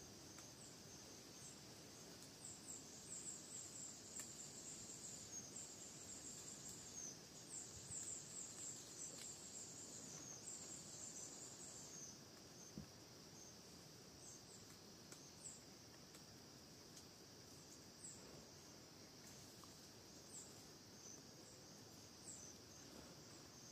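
Faint woodland ambience: a steady high insect drone, with many quick high chirps that come thick for the first ten seconds or so and then grow scattered.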